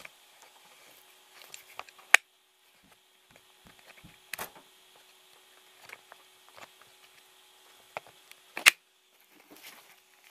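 Handling noise: scattered clicks and knocks as the handheld camera is moved and things are shifted on a wooden workbench. There are sharp knocks about two seconds in and about four seconds in, and the loudest about eight and a half seconds in, over a faint steady hum.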